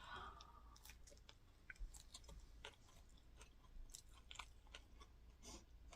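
Faint close-up chewing of crunchy fried crispy rice cake (cơm cháy), with scattered small crisp crackles as it is bitten and chewed.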